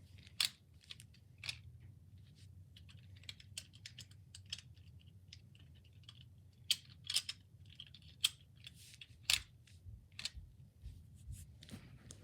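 Plastic Lego bricks of a brick-built sniper rifle clicking and snapping as its reload mechanism is worked by hand: a run of irregular sharp clicks, the loudest a few between about six and nine and a half seconds in.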